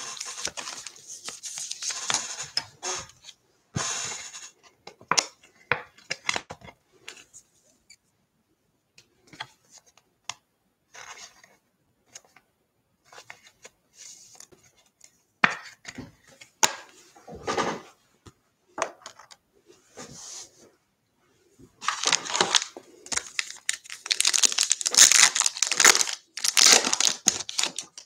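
Trading card pack wrapper being torn open and crinkled in irregular bursts, with the busiest, loudest crinkling in the last several seconds.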